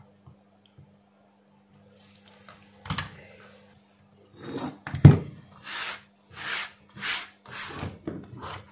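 Inverter welder circuit board handled on a workbench. A knock comes about three seconds in, then a run of short rubbing and scraping noises, about one every two-thirds of a second, with a heavy thunk about five seconds in.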